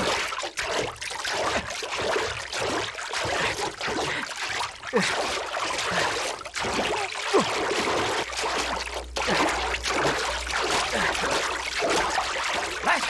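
River water splashing and churning as people thrash and are knocked into it, with several sharp knocks along the way.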